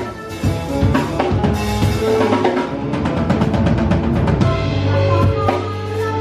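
Live band music led by a drum kit, with quick drum strokes coming thick and fast in the second half.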